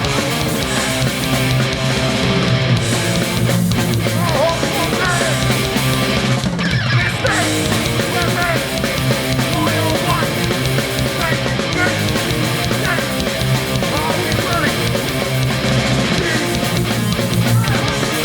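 Hardcore punk band playing live at full volume: distorted electric guitars, bass and drums.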